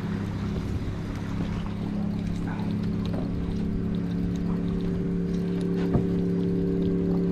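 Boat motor running steadily in reverse, a constant hum that grows slightly louder as the boat backs off the bank.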